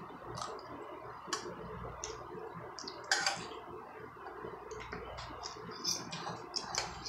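Eating spaghetti: a metal fork clicking and scraping in a stainless steel pot, with wet chewing. The clicks come scattered, with one louder one about three seconds in.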